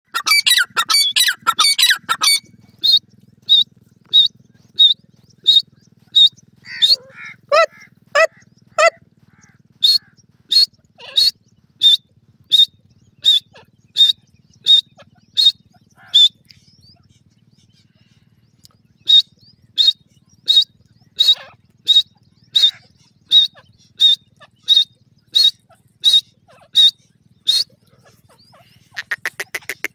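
Grey francolin calling: a fast run of shrill notes, then a long series of single sharp, high notes at about one and a half a second, breaking off for a few seconds in the middle and resuming, with a quick rattle of notes near the end.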